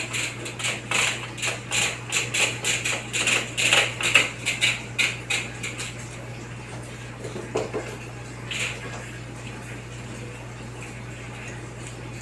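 Rapid, light clicking and clattering of small hard objects, dense for about six seconds and then thinning to a few scattered knocks, as parts of an aluminum screen door are worked on.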